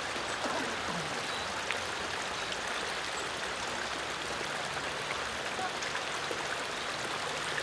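Water of a shallow garden stream running over rocks: a steady, even sound.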